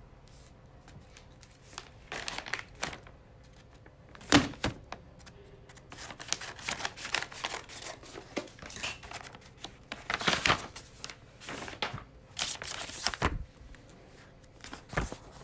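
Paper bid documents being handled: rustling and crinkling in irregular bursts, the loudest about four seconds in and again between ten and thirteen seconds in.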